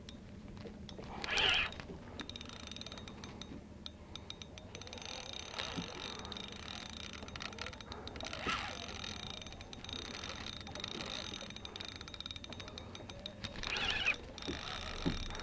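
Fishing reel clicking rapidly and continuously as line is worked against a strong, hard-pulling fish.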